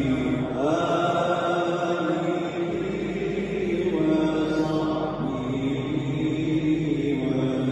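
Islamic chanting during Tarawih prayers: a voice chanting in Arabic in long, drawn-out notes that slide between pitches.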